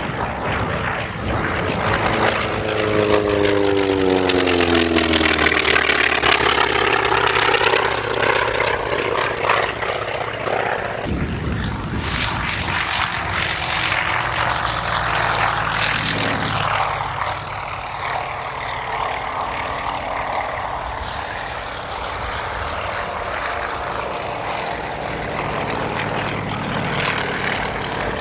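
Propeller-driven aircraft making low passes, one after another: a loud drone of engine and propeller whose pitch falls as the first plane flies by. It breaks off abruptly about eleven seconds in and goes straight into the sound of another pass.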